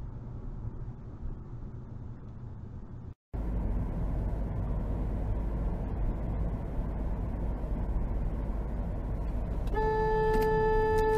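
Steady low road and engine rumble inside a moving car, then a car horn sounding one long, steady blast near the end as another vehicle cuts across ahead.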